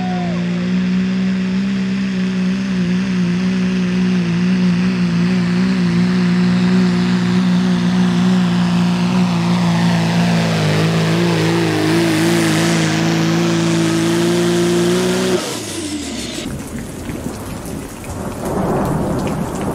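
Turbocharged diesel engine of a Dodge Ram pro stock pulling truck held at high revs under full load as it drags the sled, its pitch dipping slightly partway through. About 15 seconds in it cuts off abruptly, and a rumble of thunder with rain follows.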